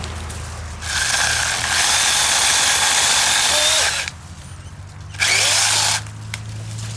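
Kimo 6-inch cordless mini chainsaw's electric motor and chain running in two bursts: about three seconds, then a short second run of under a second.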